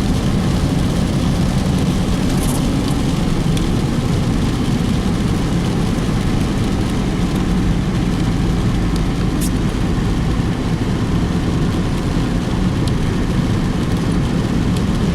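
Car driving slowly, with a steady low engine and road rumble heard from inside the cabin.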